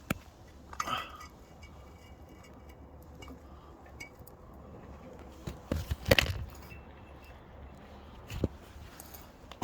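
Light metallic clinks and knocks of steel tools and brake parts being handled: a few scattered strikes with a cluster about six seconds in, the loudest.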